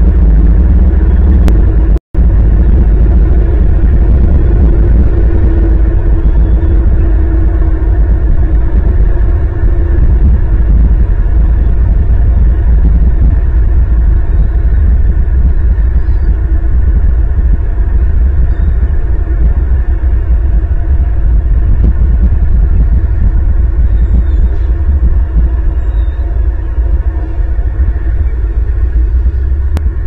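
Wind buffeting an outdoor nest-camera microphone: a loud, steady low rumble that cuts out for an instant about two seconds in.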